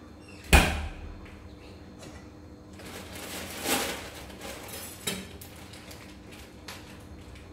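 A sharp metal clank about half a second in, as a kitchen knife is lifted out of a stainless steel bowl, followed by softer handling noises and another light knock about five seconds in.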